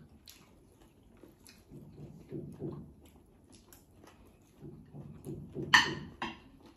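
Eating sounds: chewing and mouth noises while a meal is eaten by hand, with scattered small clicks. Two short, loud, noisy bursts come near the end.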